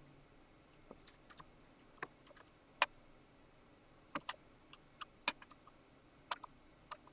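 Scattered sharp clicks and light taps, about a dozen at irregular intervals, from small hard parts or controls being handled during hand work on the mixing console.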